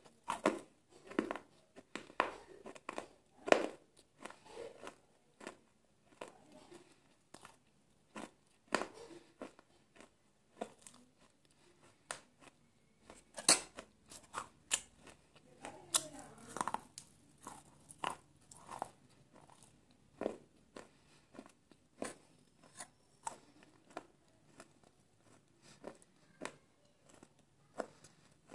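Close-up crunching of hard baked-clay chunks, broken clay diya pieces, bitten off one by one in sharp, uneven crunches with quieter chewing in between.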